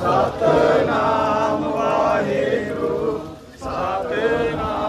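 Voices chanting a Sikh devotional hymn in long held notes, with a short break about three and a half seconds in.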